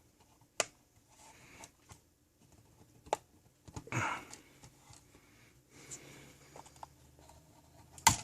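A spudger prying at the seam of a multimeter's plastic case: faint scraping with a few sharp clicks, the loudest near the end, as the case is a tight fit.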